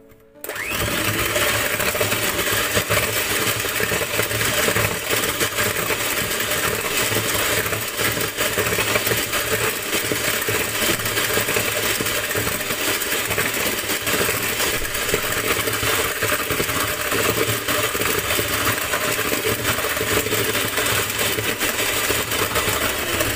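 Electric hand mixer running steadily, its twin wire whisk beaters whipping egg, sugar and milk into muffin batter in a plastic bowl. It switches on about half a second in and stops abruptly near the end.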